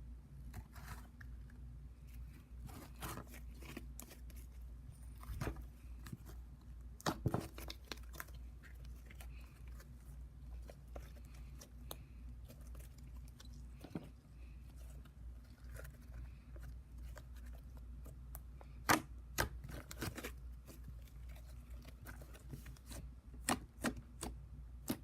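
Slime being squeezed and pulled by hand, making irregular small clicks and crackles, with a few louder pops about seven seconds in and again near nineteen and twenty seconds, over a steady low hum.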